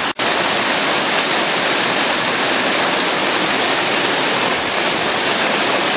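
Steady rush of falling water from a man-made waterfall cascading down a hillside. The sound cuts out for an instant just after the start.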